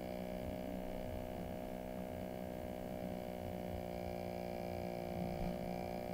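Steady electrical mains hum with a buzzy stack of overtones, unchanging throughout; no other sound.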